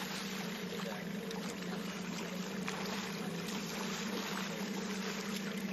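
A small boat's motor idling with a steady low hum, over a hiss of wind and water.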